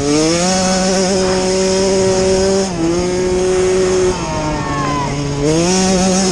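Small dirt bike engines revving on the track. The main engine climbs in pitch, holds, drops back about a third of the way in, and climbs again near the end. A second bike's engine falls in pitch as it passes through the middle.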